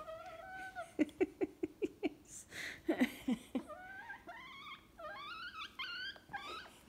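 Brahma bantam hen vocalizing up close: a held high squeak, then a quick run of short low notes, then a string of high, wavering squeaky calls that rise and fall.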